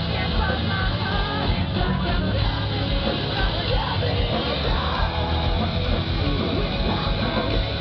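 Live post-hardcore band playing loud: distorted electric guitars, bass and drums, with a singer's yelled vocals over them.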